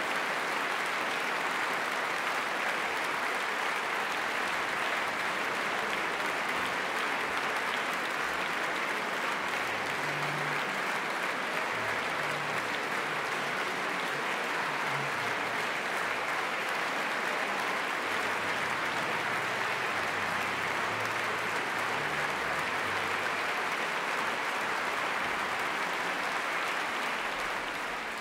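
Large concert-hall audience applauding steadily, starting to taper off near the end.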